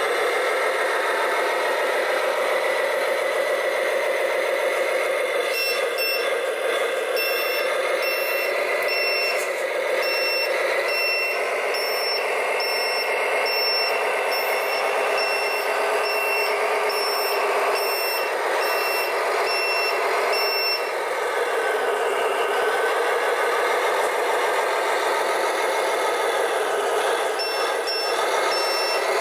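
RC scale truck's sound module playing a diesel engine running, its pitch drifting up and down slightly, with a reversing beeper beeping at a steady pace from about five seconds in until about twenty seconds in.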